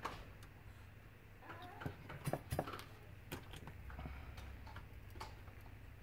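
Faint clicks and light knocks of hand tools being picked up and put down on a workbench, a few close together in the middle, over a low steady hum.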